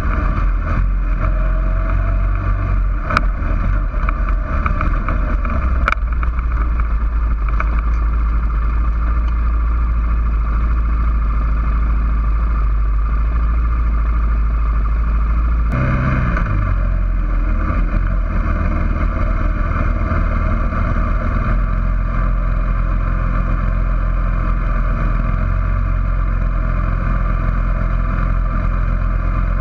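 Suzuki King Quad 400FS ATV's single-cylinder four-stroke engine running steadily as it rides, heard close from a rack-mounted camera, with a couple of sharp knocks in the first few seconds. The sound shifts abruptly about halfway through.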